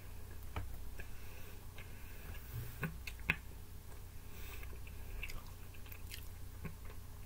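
A person chewing and biting into a slice of pizza: close mouth sounds with scattered sharp clicks, the loudest a little past three seconds in, over a low steady hum.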